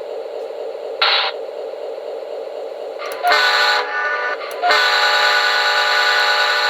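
Synthesised diesel locomotive sound from a QSI Maxx Traxx sound module: the engine idles steadily, with a brief hiss about a second in. Then the multi-chime horn sounds twice, a short blast followed by a longer one held to the end.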